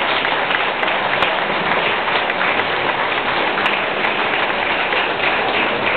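Steady applause from a large audience, a dense unbroken patter of many hands clapping in a big hall.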